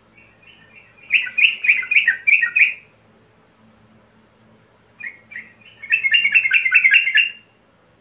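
Male yellow-vented bulbul singing two quick phrases of bubbly, chattering notes, each a second and a half to two seconds long, with a pause between: the call a male uses to challenge rival males.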